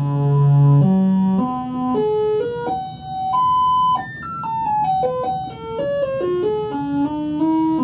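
Synthesizer.com modular analog synthesizer played from its keyboard: a melody of single notes, each rich in overtones. The first notes are held, then quicker notes step up and down in the middle.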